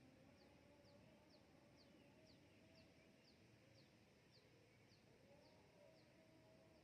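Faint bird calls: a steady series of short, high chirps, each falling in pitch, about two a second.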